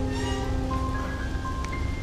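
Background music of slow, held single notes in a music-box or mallet-instrument sound, over a steady low wash of rain noise.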